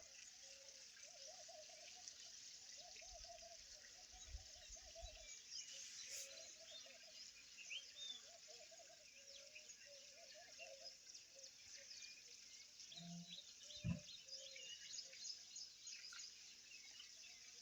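Faint night-time chorus of insects chirping and frogs calling over and over, with one soft knock about 14 seconds in.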